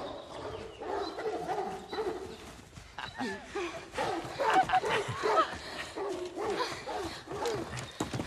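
A pack of hunting hounds barking and yelping in chase, many calls overlapping, loudest about halfway through.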